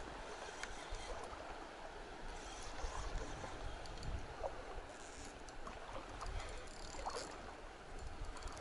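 Steady wash of river water over a shallow gravel bank, with low rumbling and a few faint clicks scattered through it.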